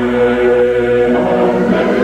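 A choir singing long held chords, with a change of chord near the end.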